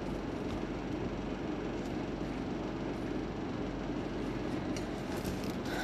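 Steady background noise with a low hum running under it and no distinct events.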